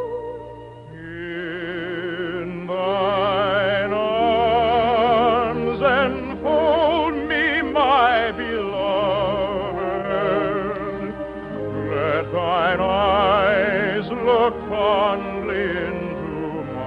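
Operetta singing with wide vibrato over an orchestra, the voices swelling to long held high notes.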